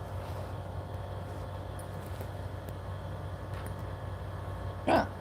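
A single short, sharp hiccup near the end, over a steady low background hum.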